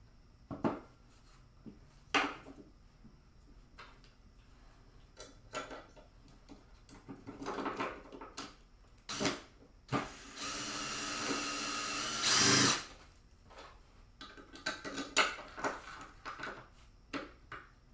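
Handheld electric drill running for about two and a half seconds, ending in a louder surge as it bites, among scattered knocks and handling clatter of tools and parts.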